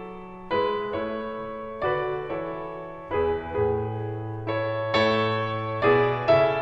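Background piano music: chords struck about once or twice a second, each one ringing and fading before the next.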